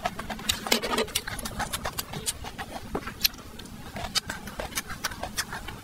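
Close-miked chewing of grilled pork ribs: wet mouth clicks and smacks, several a second at an uneven pace.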